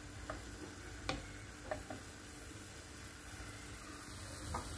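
Green peas and diced onion sizzling faintly in oil in a non-stick frying pan, with about three light taps of a wooden spatula on the pan in the first two seconds.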